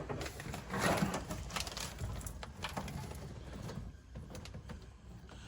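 Scattered clicks, snips and rustling as the car's old wiring is cut and pulled loose, busiest about one to three seconds in.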